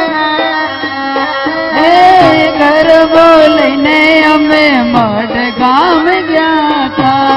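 Live folk music: a woman sings an ornamented, sliding melody from about two seconds in to near the end, over a sustained instrumental drone and hand-drum beats.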